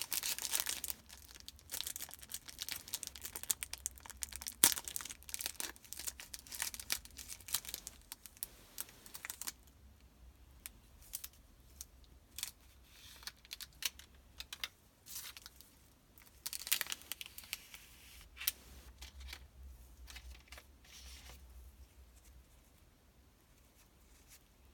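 Kinder Bueno packaging being torn open and crinkled by hand, with dense crackling for the first ten seconds or so, then sparser crinkles and clicks that thin out near the end.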